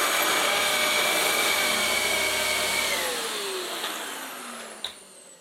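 Dyson DC11 cylinder vacuum cleaner running with a steady high whine, then switched off about three seconds in, its motor winding down in a falling whine that fades away. A single sharp click comes near the end.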